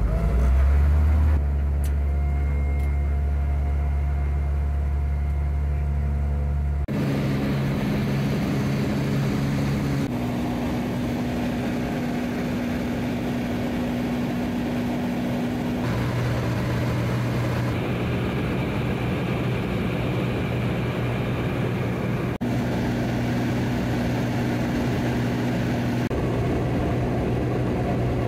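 Cabin drone of a small propeller bush plane's engine and propeller, growing louder about a second in. Its steady low tones jump to a new pitch several times.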